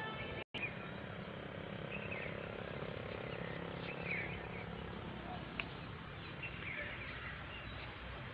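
Open-field ambience: a steady low background rumble with a few short bird chirps now and then. The sound cuts out completely for a moment about half a second in.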